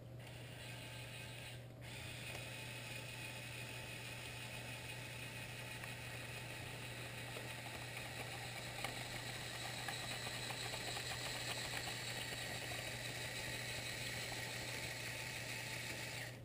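Small electric motors and plastic gearing of a LEGO Technic motorized excavator whirring steadily, with a faint ratcheting clatter; the whir grows a little louder through the middle and cuts off abruptly just before the end.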